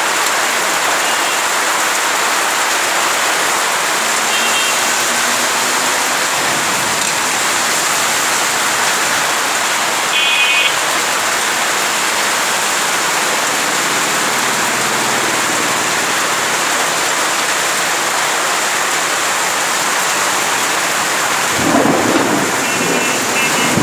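Heavy rain pouring steadily, a dense even hiss of downpour. A few brief high chirps come through the rain, and a short low rumble sounds near the end.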